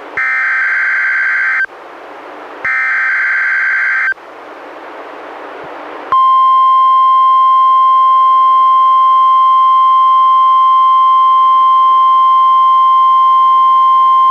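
NOAA Weather Radio emergency alert broadcast: two bursts of the SAME digital header's warbling data tones about a second apart, a stretch of radio hiss, then the steady 1050 Hz warning alarm tone from about six seconds in through the end. This is the header and alarm tone of a Required Weekly Test.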